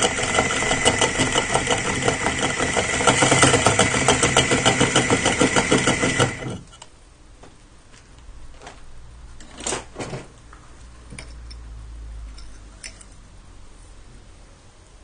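Electric drill with a masonry bit grinding through a ceramic toilet tank lid to enlarge its hole, running loud and steady, then stopping abruptly about six seconds in. After that, quieter handling noise with a couple of light knocks.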